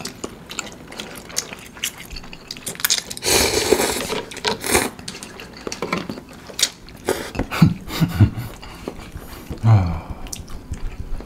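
Wet slurping of soupy curry instant noodles, with two long slurps a few seconds in, then chewing and small clicks of a fork and chopsticks against the dish. A short voiced 'mm' comes near the end.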